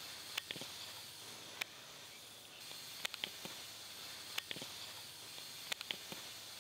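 Steady hiss with sharp crackles and pops, often in close pairs, from material smoking heavily on a small metal stand over a flame.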